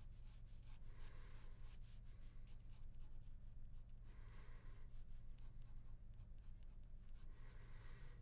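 Ballpoint pen scratching faintly across drawing paper in quick strokes, with longer scribbling strokes about a second in, around four seconds in and near the end. A low steady hum runs underneath.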